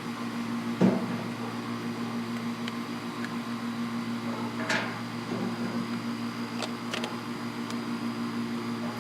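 Steady low hum of a motor or appliance, with a few light clicks and knocks of handling, the loudest about a second in and another near the middle.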